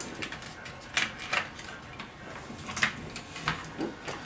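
Small plastic clicks and rattles of a laptop's internal speaker assembly and its wire being worked loose from the plastic chassis. A scattering of sharp clicks, the clearest about a second in and near three seconds in.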